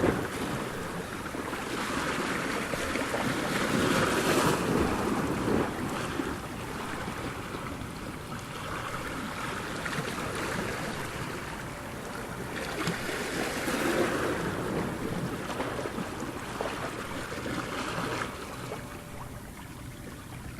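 Ocean surf: waves breaking and washing in, a steady rush that swells to louder surges about four seconds in and again around fourteen seconds.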